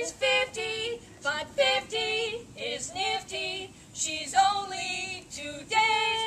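Women singing a song in short, quick notes, ending on a long held note near the end.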